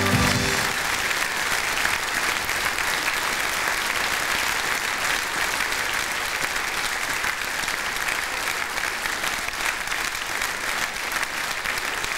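Large hall audience applauding, steady and sustained.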